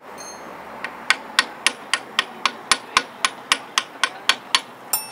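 Hammer tapping on metal in a steady rhythm: about fifteen sharp strikes at roughly four a second, starting about a second in and stopping shortly before the end.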